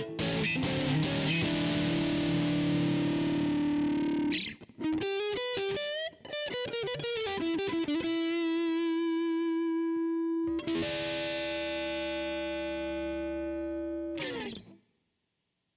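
Electric guitar played through a VOX StompLab IIG modelling pedal on one of its Gain amp models, with a distorted, overdriven tone. A chord rings out, then comes a quick run of single notes, then a held note, then a second chord that rings and is cut off sharply about a second before the end.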